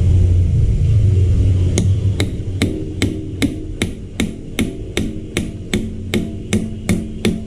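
A hammer striking metal in a steady run of sharp, ringing taps, about two and a half a second, starting about two seconds in during drive-shaft work. Under the first two seconds is a low rumble that fades as the tapping begins.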